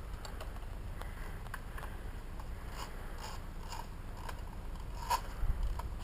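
Faint, irregular clicks and handling noise over a steady low rumble, about half a dozen scattered ticks with no rapid regular firing rhythm.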